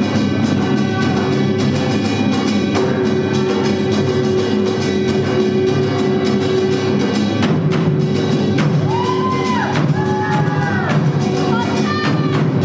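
Samulnori percussion ensemble playing: kkwaenggwari small gongs with janggu hourglass drums and buk barrel drums beating a dense, continuous rhythm.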